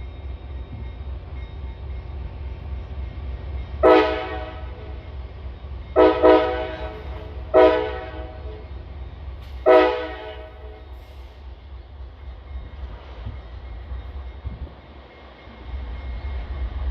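CSX diesel locomotive sounding its multi-chime air horn in a string of short blasts, about four or five over six seconds, the second one doubled. The engine's low rumble runs steadily underneath.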